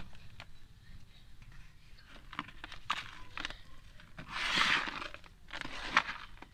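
Dry red dirt crumbling and being stirred by fingers in a plastic tub: scattered small crunches and crackles, with a longer gritty rush of sifting dirt about four and a half seconds in.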